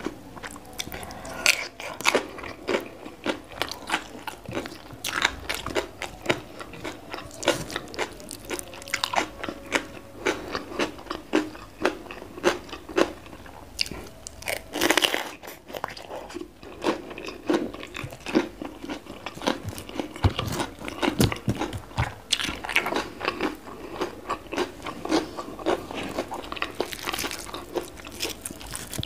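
Close-miked biting and chewing of raw winged bean and other raw vegetables with sambal: a dense, irregular run of sharp, crisp crunches, several a second.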